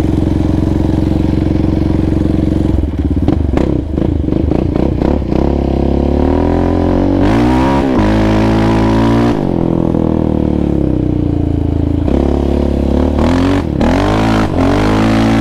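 Yamaha Raptor 700R sport ATV's single-cylinder four-stroke engine being ridden through an aftermarket Monster exhaust, its revs rising and falling with the throttle, with sharp climbs about seven seconds in and again near the end. A few sharp knocks and clatters three to five seconds in.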